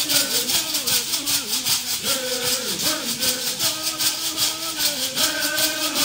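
Stomp dance song: men's voices singing over the steady, even shaking of leg-worn shell shakers, about four to five shakes a second.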